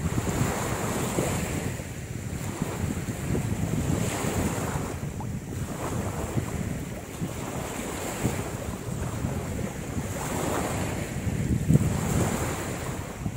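Wind buffeting the microphone over waves on the shore, the noise swelling and easing every few seconds.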